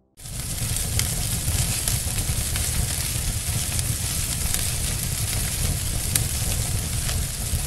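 Fire burning: a steady low rumble and hiss with a few sharp crackles, starting suddenly just after the start.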